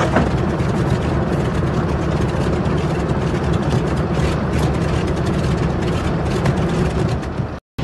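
Propeller fighter planes' engines running on a film soundtrack, a steady heavy rumble with scattered clicks. The sound drops out for an instant near the end.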